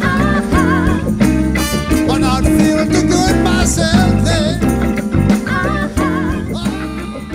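Band music with a singer, fading out over the last couple of seconds.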